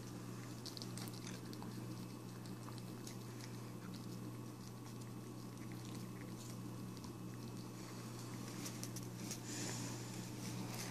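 Small Chihuahua–Yorkie mix dog chewing and licking a chunk of orange, with soft irregular clicks and wet smacks, over a steady low hum.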